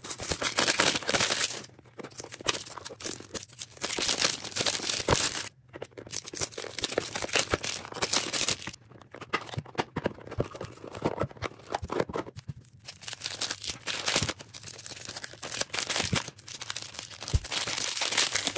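Thin plastic wrap crinkling and tearing as it is peeled off a puzzle cube, in irregular bursts with short pauses and many sharp clicks of hard plastic boxes being handled.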